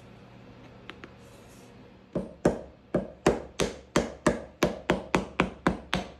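A mallet tapping a wooden pad strip down onto the foot of a trestle leg to seat it. The taps start about two seconds in and come evenly, about three a second.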